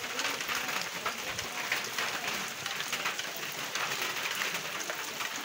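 Steady rain falling on a wet paved road, a dense even hiss of many drops.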